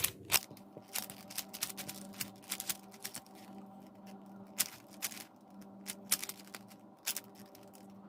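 Plastic 4x4 Rubik's cube being turned by hand: its layers clack and click irregularly as they are twisted in quick moves.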